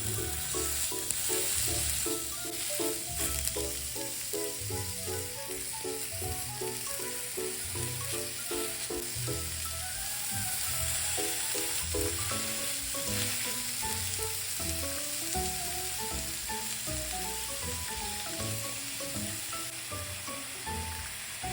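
Food sizzling steadily as it fries in a hot pan, with light background music and a bass line playing along.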